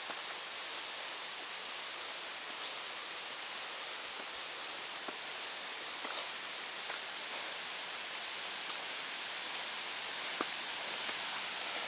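Steady rush of running water, swollen by several days of rain, with a few faint footstep clicks.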